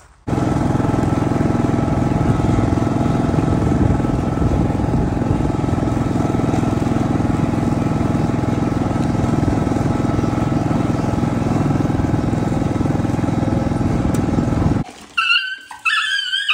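A vehicle's engine running steadily while it is driven across grass. It cuts off suddenly near the end, followed by a few short high whimpers from a dog.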